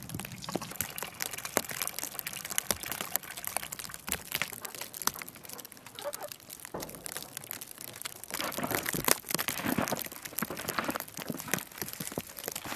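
Footsteps crunching through snow, then a wooden plank barn door being pulled open, and near the end hands rustling in dry straw: a run of irregular crunches, scrapes and knocks.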